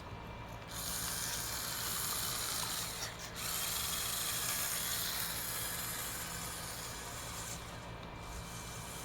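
Remote-control Lego car's motor and plastic gears whirring and rattling as it drives. It starts about a second in, breaks off briefly around three seconds, then runs on and eases near the end.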